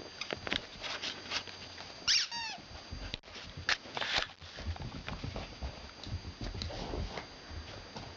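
Puppy batting and chasing a toy football across carpet: scattered soft knocks and scuffles, with one short, high squeal that falls in pitch about two seconds in, the loudest sound in the stretch.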